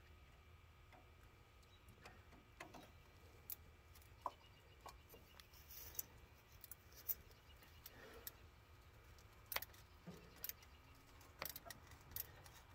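Faint, scattered clicks of a ratchet with a socket extension and metal tools working a rusty hose clamp on the carburetor's fuel hose, over near silence.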